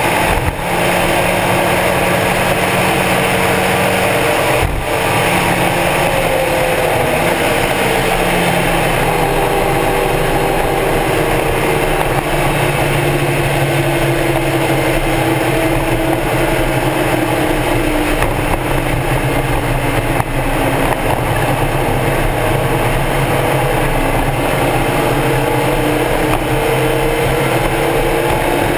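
Stock Mazda Miata's four-cylinder engine running on track, its pitch slowly falling and rising as the revs change. There are short breaks in the sound about half a second in and near five seconds in.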